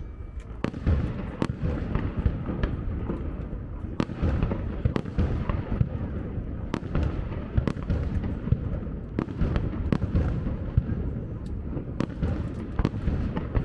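Fireworks display: a run of irregular, sharp bangs from bursting aerial shells over a continuous low rumble.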